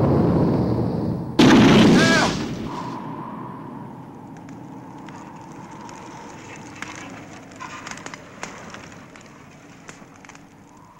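A loud explosion about a second and a half in, dying away over the next couple of seconds into the scattered crackle of a burning fire under a faint steady tone.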